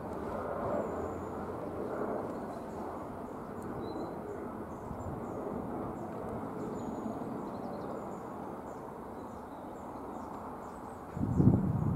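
Class 66 diesel freight locomotive and its box wagons approaching at a distance: a steady low rumble of the two-stroke V12 diesel engine and rolling wheels, with faint bird chirps over it. A brief loud low thump comes near the end.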